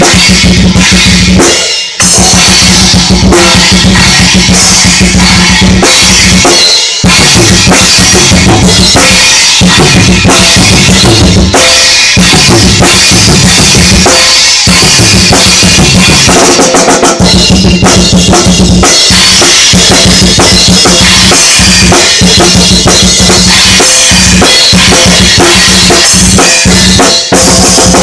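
Acoustic drum kit played fast and very loud in a death metal solo: kick drum, snare and cymbals in a dense, unbroken stream of strokes, with brief breaks about two and seven seconds in and again near the end.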